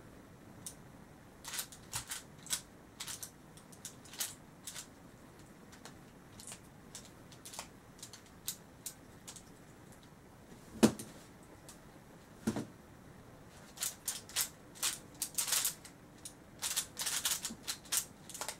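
Plastic Yuxin Little Magic Pyraminx being turned by hand, its layers and tips clicking in short snaps. The clicks are scattered at first, with a couple of louder knocks past the middle, then come in a fast flurry of turns near the end.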